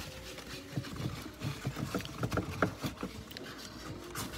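Scattered light clicks, knocks and rustles of items being moved on a refrigerator shelf and a cardboard egg carton lid being lifted.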